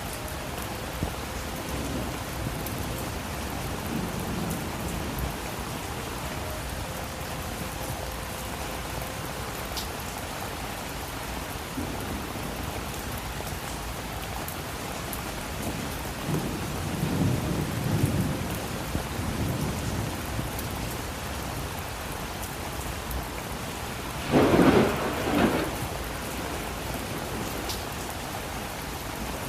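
Steady rain falling, with low rolls of thunder rumbling twice and a louder, sharper thunderclap late on.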